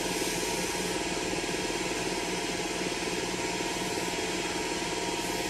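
Metal lathe running steadily at low speed, its motor and chuck turning without a change.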